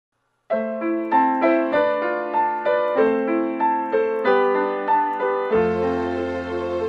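Piano music: single notes played in a repeating broken-chord pattern, about three a second, starting half a second in. A low sustained bass note and a soft higher layer join about five and a half seconds in.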